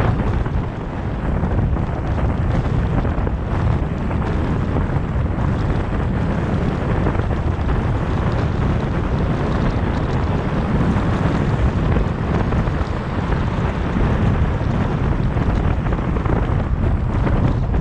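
Steady road noise from a car driving at highway speed, with low wind rumble on the microphone over tyre and road hiss.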